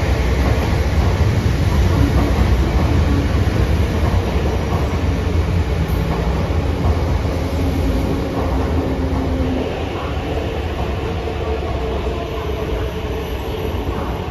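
Metro train running into an underground station and pulling along the platform: a loud low rumble of wheels on rail that eases about ten seconds in, with a brief steady tone partway through.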